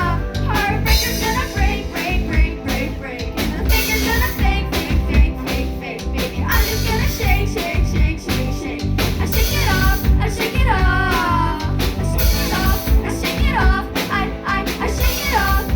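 Rock band playing live: a steadily pounding drum kit under guitar, with a sung vocal line coming in near the start, again about two-thirds of the way through and near the end.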